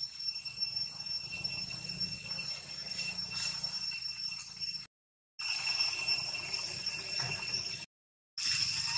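Steady, high-pitched drone of insects singing, which drops out twice for about half a second.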